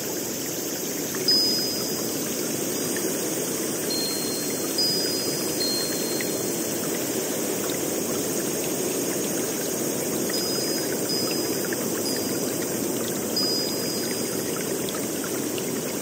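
Steady rushing of flowing water, with short, high wind-chime notes ringing now and then.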